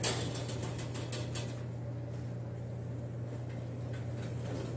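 Metal oven rack pulled out on its slider shelf: a quick run of light metallic clicks and rattles in the first second or so, over a steady low hum.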